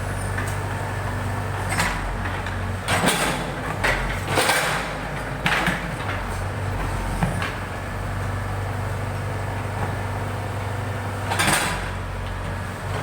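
Backhoe loader's diesel engine running steadily at a low hum, with several sharp metallic clanks about 2, 3, 4.5, 5.5 and 11.5 seconds in.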